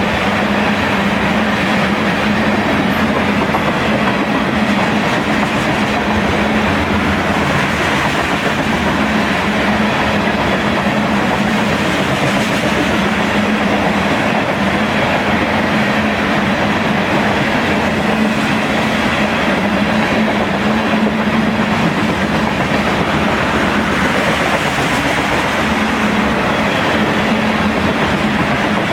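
CSX freight train cars rolling past, a loud, steady run of steel wheels on rail.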